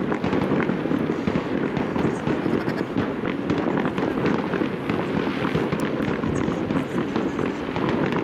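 Fireworks going off in a continuous crackling barrage of many rapid small pops, with no single loud bang.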